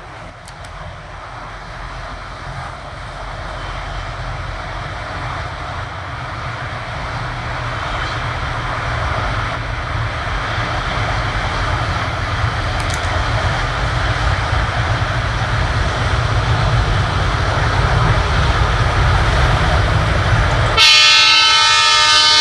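ALCO WDM-3A diesel-electric locomotive approaching at the head of a passenger train, its engine rumble and wheel noise growing steadily louder. Near the end the locomotive's horn sounds, a loud blast of several tones together.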